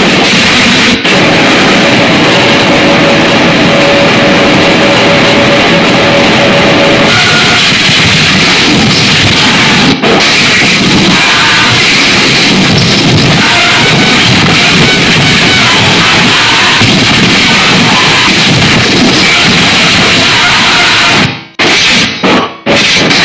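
Harsh digital noise music: a loud, dense wall of distorted noise, with a held mid-pitched tone for the first several seconds. It breaks off suddenly a couple of times, and near the end it chops into stuttering cut-up fragments.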